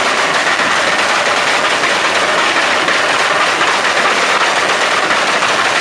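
Turbocharged car engine with turbo flutter: a loud, rapid, continuous chattering from the turbo compressor.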